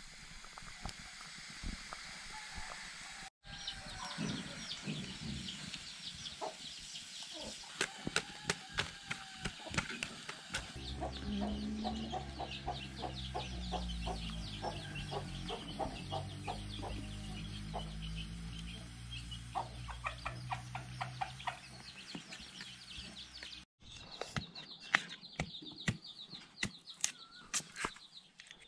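Chickens clucking and calling, with many sharp clicks and knocks throughout and a low droning sound through the middle stretch.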